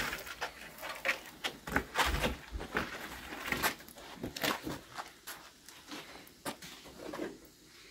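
Irregular clicks and knocks at a wood-fired clay oven: a long wooden pole raking the burning embers, with the fire crackling. The clicks thin out near the end.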